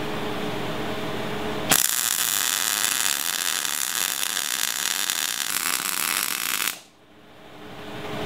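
MIG welder arc crackling steadily as a bead is run on a steel control arm mount bracket. It starts under two seconds in, lasts about five seconds and cuts off suddenly when the trigger is released.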